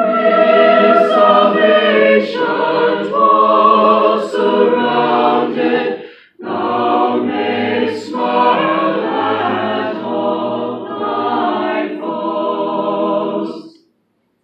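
A choir singing a hymn a cappella in chords, in two phrases with a short breath break about six seconds in; the singing stops together near the end.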